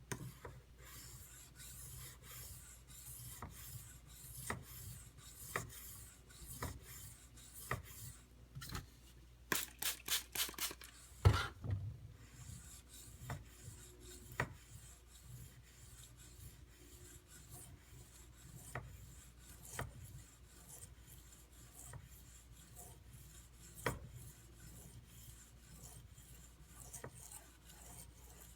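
Knife blade stroked back and forth on a 320-grit whetstone, grinding the bevel: a gritty scrape with each stroke, about one a second. A quick run of louder knocks comes about ten seconds in.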